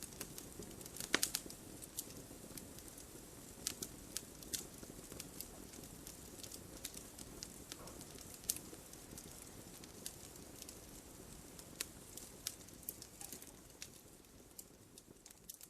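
Wood fire crackling: irregular sharp pops and snaps over a low, steady rush of burning, fading out near the end.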